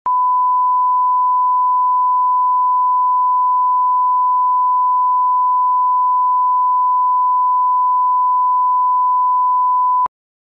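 Broadcast line-up tone: a steady 1 kHz reference tone played with SMPTE colour bars to set audio levels, one unchanging pure pitch that cuts off abruptly just before the end.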